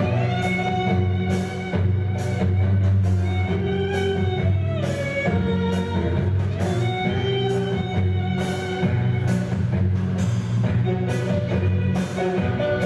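Music with a steady drum beat and a heavy bass, under a melody of long held notes that slide up and down in pitch.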